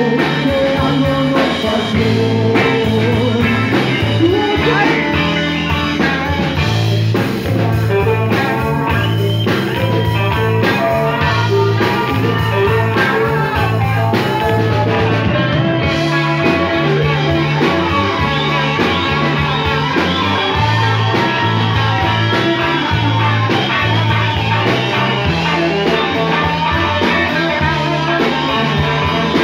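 Live rock band playing: electric guitars over bass and a drum kit, with a wavering melodic lead line on top.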